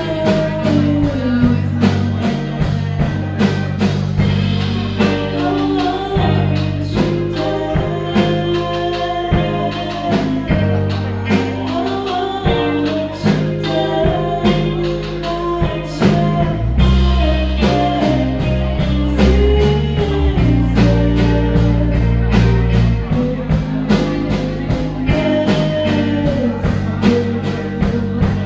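Live indie rock band playing: a woman's lead vocals over two electric guitars, electric bass and a steady drum beat.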